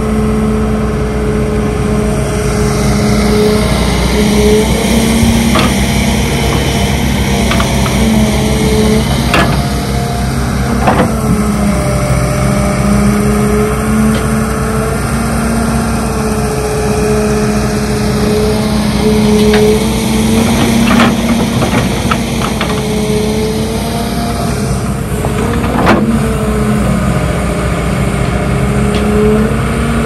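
Excavator's diesel engine running at high revs, its pitch dipping and rising as it works, with several sharp clanks and knocks on top.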